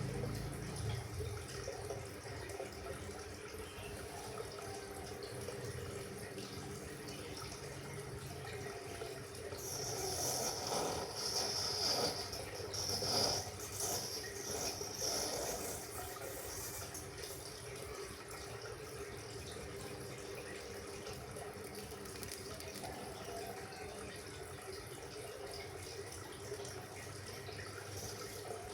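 Water running and splashing steadily, with a louder, splashier stretch for several seconds in the middle.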